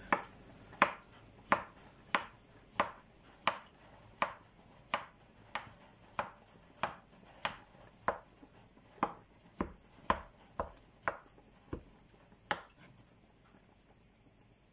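Chef's knife slicing strawberries on a wooden cutting board, the blade knocking the board at a steady pace of about three strokes every two seconds. The strokes stop a couple of seconds before the end.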